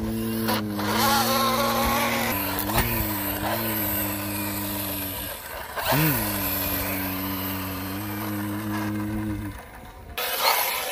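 A truck engine idles steadily, revving up and dropping back briefly twice, then cuts out. A short hiss follows near the end.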